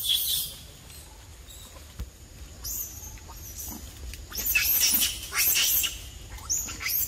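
Short, high-pitched animal squeaks and chirps in quick bursts, coming more often in the second half.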